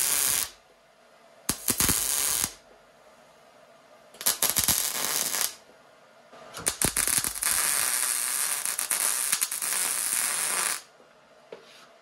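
Wire-feed welder arc crackling in four bursts, welding a nut onto the back of a steel mounting plate. The first burst stops just after the start, then come short welds about 1.5 and 4 seconds in, and a longer weld of about four seconds that stops near the end.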